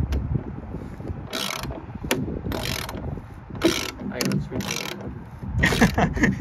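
Screwdriver working a steel door-hinge bolt on a Land Rover Defender 90, with a short burst of ratcheting clicks about every half second as the handle is turned. The bolt spins in place rather than coming undone.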